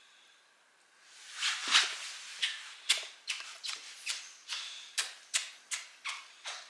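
Rustling of a padded jacket against a leather sofa as a person leans in to hug a bulldog, then a quick run of about a dozen kissing smacks, two or three a second.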